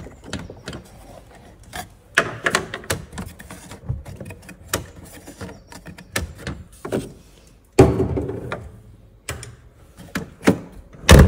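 Land Rover Discovery 1 rear door handle being pulled and released over and over, its latch mechanism clicking and clacking, with heavier thunks about two seconds in, near eight seconds and at the end. The handle has just been given a squirt of lubricant to cure its common habit of sticking open.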